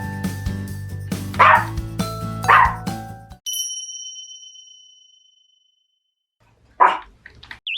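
A Pomeranian barks twice over background music. The music then stops with a bright chime that rings out and fades, and after a short silence the dog barks once more near the end.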